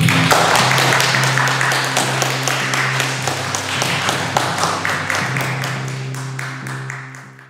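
Hands clapping in a dense patter over music holding a steady low note; both fade out near the end.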